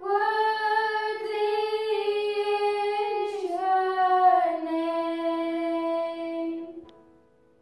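Two young girls singing together, with no instrument to be heard, ending on a long held note that fades away near the end.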